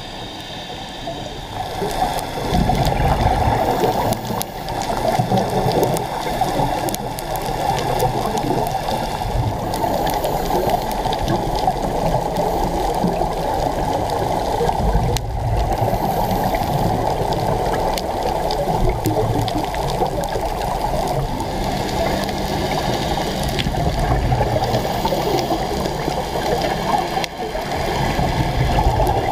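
Muffled underwater rushing and gurgling water noise, with low surges coming and going every few seconds.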